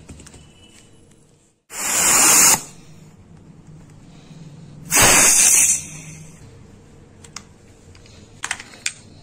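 Compressed CO2 venting in two sharp hisses from a Webley Mark VI CO2 revolver as its 12 g capsule is released, each hiss under a second. Small clicks of the revolver being handled follow near the end.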